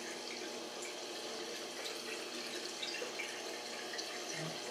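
Steady running, trickling water of a saltwater reef aquarium's circulation, with faint scattered ticks.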